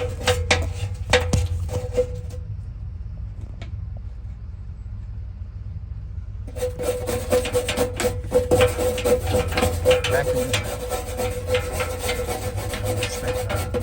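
A brush scrubbing rust off metal parts of a gas water heater, rubbed quickly back and forth. The scrubbing stops about two seconds in and starts again about four seconds later.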